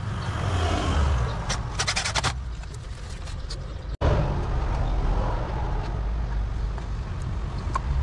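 Steady low rumble, with a quick run of sharp metallic clicks and rattles about two seconds in as hand tools are handled during work on a booster pump's pipe fittings; the sound drops out for an instant about halfway through.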